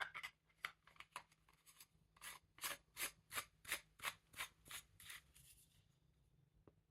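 Faint short rubbing or scraping strokes by hand, about three a second, loudest in the middle and stopping about five seconds in.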